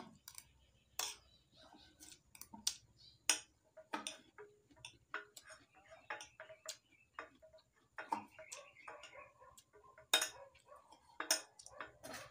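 A metal spoon clinking and scraping against a ceramic bowl of rice in sharp, irregular clicks, with softer chewing and mouth sounds between them.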